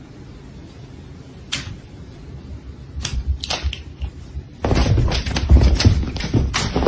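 A cat gnawing and scuffling on a blanket: a few sharp clicks and crackles, then a loud rough scuffle from about two-thirds of the way in as it thrashes, cutting off abruptly at the end.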